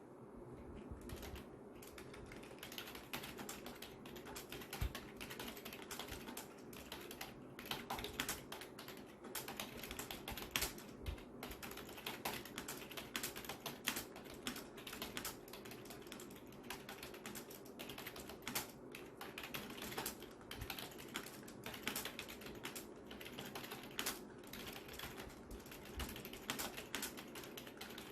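Continuous typing on an office membrane keyboard whose keys and stabilizer wires have been lubed: a dense run of soft key presses with a louder stroke every few seconds.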